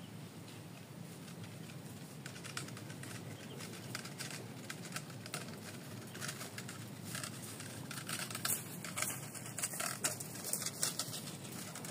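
Footsteps and rustling of a person in rubber boots walking through dry grass and cassava litter, a patter of small crackles that gets denser and louder in the last few seconds as the walker comes close.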